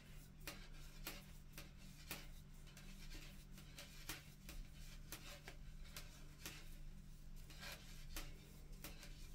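Faint, light clicks of metal knitting-needle tips knocking together, about two a second at an even pace, as stitches are cast on with a long-tail cast-on.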